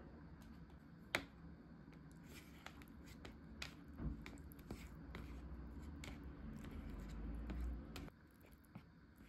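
Faint, scattered clicks and taps of plastic food containers and utensils being handled, with a low hum that starts about four seconds in and cuts off suddenly near eight seconds.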